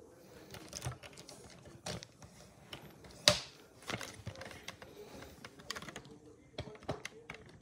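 A cat scrambling in and against a cardboard box on a wooden floor: irregular clicks, scratches and rustles of claws and body on cardboard, with one sharp knock about three seconds in.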